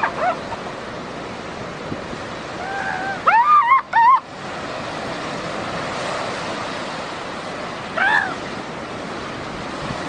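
Fur seal pup bleating: short wavering cries, loudest in a cluster about three to four seconds in, with a fainter one near the end. Under them, a steady wash of surf and wind.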